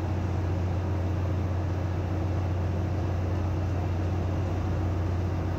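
Steady ship's engine-room machinery noise: a constant low hum under a broad, even noise.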